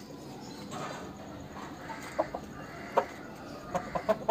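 Chicken clucking in short, clipped clucks: a pair about two seconds in, one a second later, and a quick run of four or five near the end.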